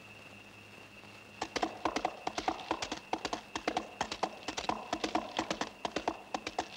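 A horse's hooves clip-clopping at a quick, uneven pace as it approaches, starting about a second and a half in.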